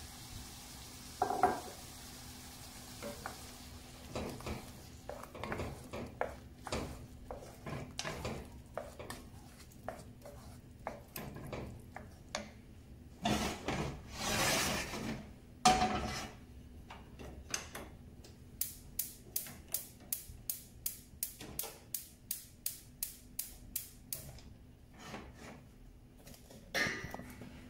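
Wooden spoon stirring chunky tomato sauce in a cast iron skillet, scraping and knocking against the pan, with a louder clatter of pans on the stove about halfway through. Then a run of evenly spaced sharp clicks, about two or three a second, for several seconds.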